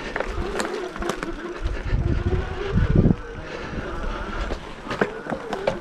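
Hiboy EX6 fat-tire electric bike ridden over a bumpy trail: its electric motor gives a steady, slightly wavering whine, with scattered rattles and knocks from the bumps. Gusts of wind rumble on the microphone about two to three seconds in.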